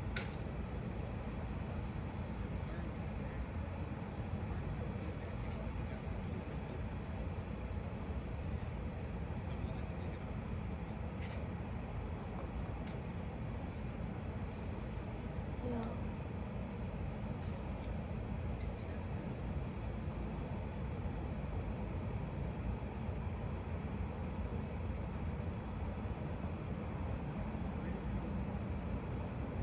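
Chorus of insects, likely crickets, giving an unbroken high-pitched trill over a low steady rumble.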